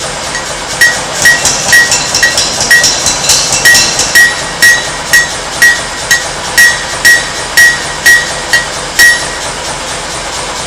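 Hand hammer striking metal on a steel anvil at a steady pace of about two blows a second, each blow a sharp metallic strike with a short ring. About twenty blows, stopping shortly before the end, over a steady background rush.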